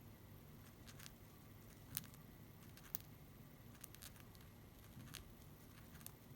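Faint, scattered small clicks and ticks from a pair of budgerigars, about seven in all at irregular spacing, the two sharpest about two and three seconds in, over a quiet low hum.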